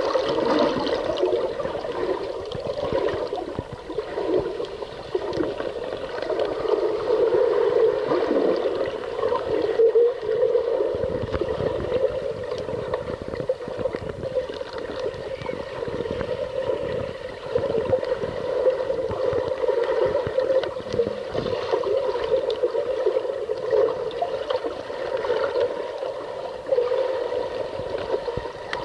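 Muffled underwater water noise heard through an action camera's waterproof housing: a steady rushing gurgle of water with many small knocks and bubble sounds.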